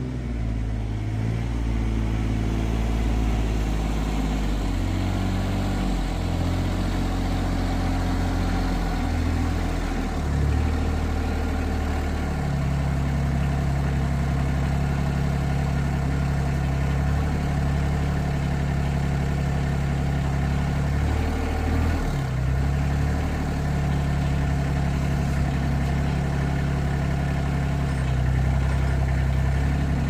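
Rural King RK25 compact tractor's engine running steadily. Its speed shifts up and down a few times as the tractor drives up and works the loader to pick up quick-attach pallet forks.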